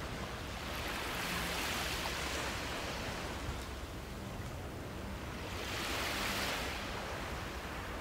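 Ocean surf: a steady rush that swells twice as waves wash in.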